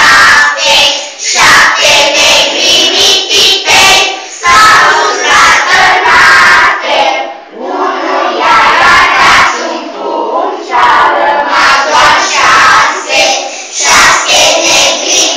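A group of young children's voices singing together loudly, the recording overdriven.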